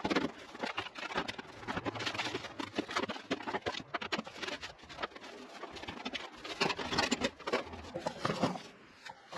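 Clattering, knocking and rustling of tools and junk being handled and moved about in a sheet-metal garden shed, a busy run of irregular knocks and clicks that eases off near the end.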